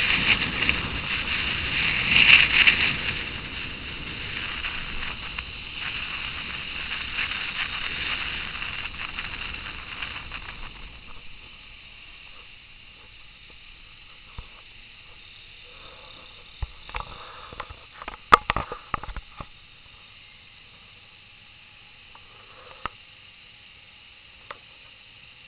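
Wind and road noise on the microphone of a moving motorcycle, fading over the first ten seconds as the bike slows to a stop at a junction. Then it is much quieter, with a quick cluster of clicks and knocks a few seconds later and two single ticks near the end.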